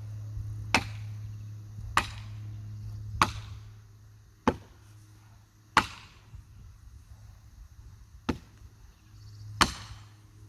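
Felling wedges being driven into the back cut of a dead oak with heavy hammer blows, seven strikes about a second and a quarter apart. The wedging is forcing over a tree that is still standing and only shaking at the top.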